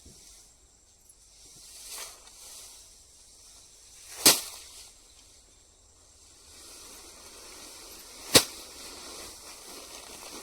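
Sharp cracks, three in all about two to four seconds apart, the second and third loudest, over faint outdoor background noise.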